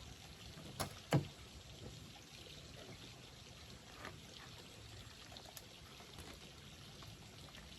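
Spring water pouring steadily from a pipe. Two sharp knocks about a second in.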